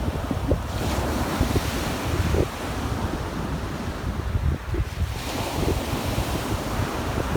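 Sea waves breaking and washing up the beach, surging twice, about a second in and again about five seconds in. Wind buffets the microphone throughout.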